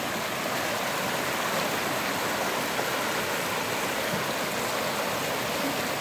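Steady, even rush of water from a waterfall and its stream.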